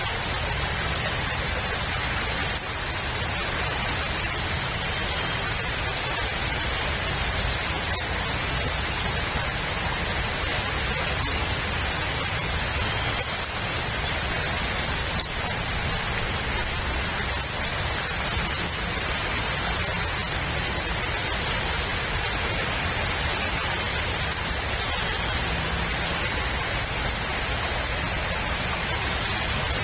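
Steady rain at an outdoor nest-cam microphone: an even hiss with a low rumble underneath and a few faint drop ticks.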